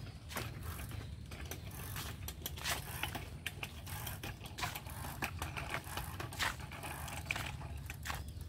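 Bicycle freewheel ticking while coasting: scattered, uneven clicks over a steady low rumble.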